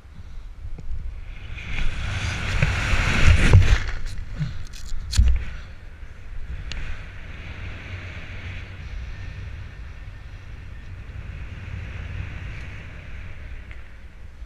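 Wind rushing over a parachutist's camera microphone, swelling loud in the first few seconds with a few sharp cracks about five seconds in, then settling to a steady, quieter rush during canopy flight.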